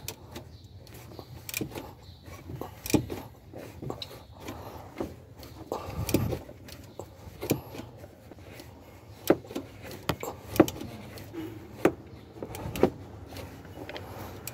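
Irregular clinks and knocks, about a dozen, from tools and engine parts being handled during work on the exposed timing-chain end of a Nissan YD25 diesel, over a low steady hum.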